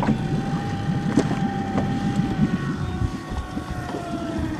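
Knocks and clunks of footsteps and gear being handled on a jon boat's deck, over a steady motor whine that slowly drops in pitch toward the end.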